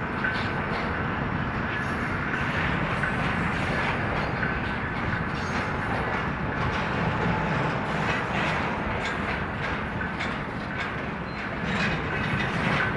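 Union Pacific intermodal freight train rolling past: a steady rumble of wheels on rail, with scattered clicks and a faint thin squeal that comes and goes.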